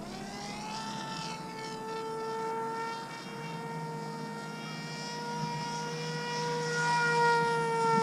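Electric motor and propeller of a foam-wing RC plane whining, its pitch rising over the first second as the throttle comes up, then holding nearly steady.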